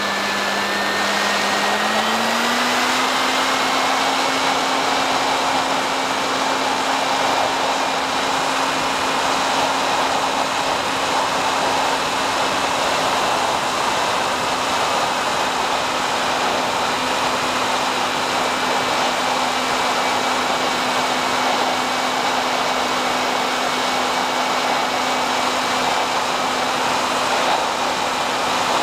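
Electric motor and propeller of a SkyHunter FPV plane heard from on board: a steady whine over a rush of air. The whine steps up in pitch about two seconds in as the throttle is opened, then holds.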